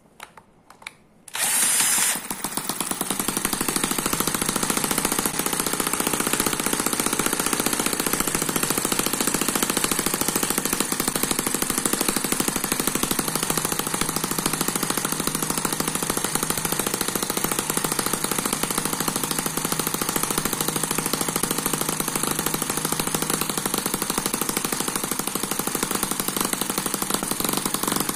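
Eachine EM4 miniature water-cooled four-stroke single-cylinder spark-ignition engine spun up by a cordless drill on its starting adapter, catching about two seconds in. It then runs on its own at a steady, rapid firing beat.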